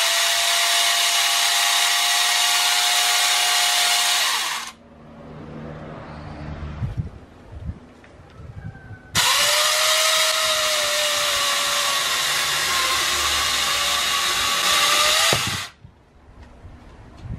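Angle grinder fitted with a chainsaw bar and chain running at full speed with a high, steady whine for about five seconds, then stopping. After a quieter pause it runs again for about six seconds, its pitch dipping slightly as the chain cuts into a log, then cuts off.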